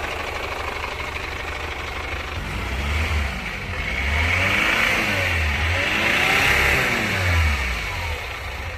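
Chevrolet Captiva's common-rail diesel engine revved several times from idle, its pitch rising and falling with each blip. It sounds rough, and the mechanic puts this down to a fouled fuel system from running on biosolar.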